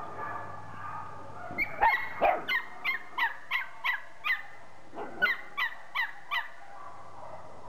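A series of short, pitched animal calls repeated about three times a second, each sliding down in pitch, in two bouts: the first starting about a second and a half in, the second about five seconds in.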